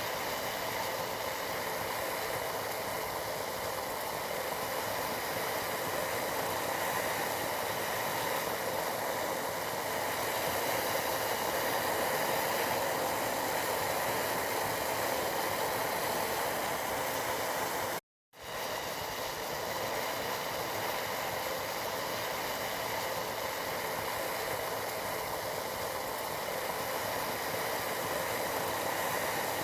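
Tea boiling in a pot, a steady bubbling hiss. It cuts out for a moment a little past halfway through and fades back in.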